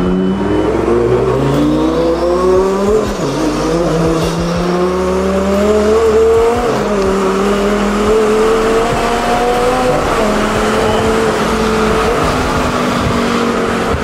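Twin-turbocharged Lamborghini engine heard from inside the cabin, accelerating up through the gears. The engine note climbs, drops at an upshift about three seconds in and again about six and a half seconds in, then pulls on at a fairly steady pitch.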